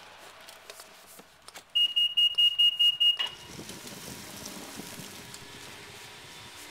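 An electronic beeper sounds a rapid string of high beeps, about five a second for about a second and a half, and then cuts off. A steady rushing noise follows.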